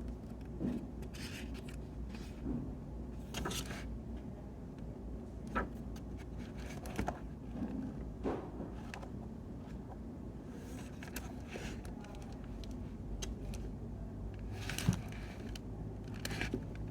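Steady low brown noise, with light scratches and taps from pen and paper being handled during annotating, coming irregularly about a dozen times.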